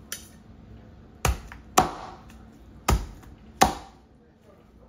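A meat cleaver chopping through pieces of cooked jerk chicken onto a cutting board: four sharp chops in two pairs.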